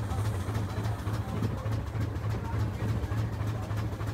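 An engine running steadily with a low, evenly pulsing hum.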